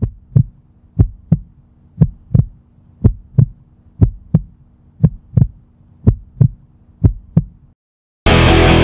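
Heartbeat sound effect: eight double thumps (lub-dub), about one a second, over a faint low hum. After a short silence, rock music with electric guitar comes back in near the end.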